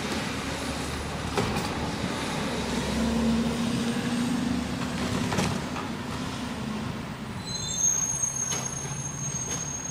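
Garbage truck running, a steady low engine rumble heard from down the street, with a few clicks and a thin high-pitched squeal from about seven and a half seconds in.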